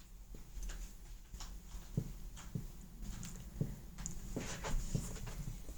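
Faint handling noise from AirPods Pro (2nd generation) earbuds being fitted into the ears: scattered light clicks and soft rubs, a few a second.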